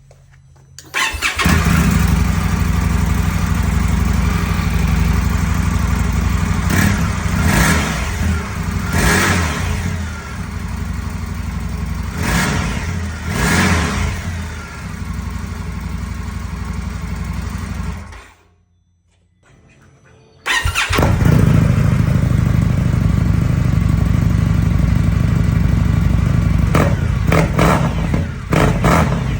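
2025 Indian 101 Scout V-twin motorcycle engine starting and idling, with several quick revs that rise and fall. It goes quiet about 18 seconds in, then comes back loud about two seconds later, idling with a few more revs near the end.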